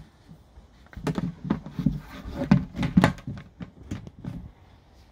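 Hollow plastic knocks and thuds as black water-line tubing is handled in a hole in a plastic reservoir lid, the lid knocking on its tub; a cluster of irregular knocks starting about a second in and stopping shortly before the end.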